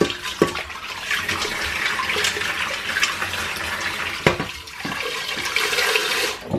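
Tap water running hard into a stainless steel pot and splashing into a steel sink as the pot is rinsed and rubbed out by hand. A few sharp knocks come as the pot is handled, about half a second in, a little after four seconds and near the end.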